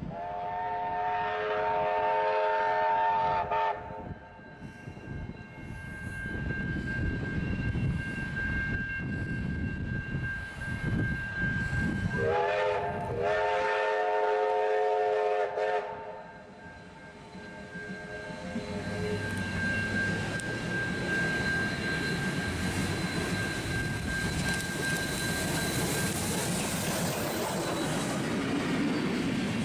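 Steam locomotive whistle giving two long blasts of about three seconds each, a held chord of several notes; the first comes at the start and the second about twelve seconds in, sliding up in pitch as it opens. In between and afterwards come the rumble of the locomotive working and its carriages rolling past, with some wind noise on the microphone early on.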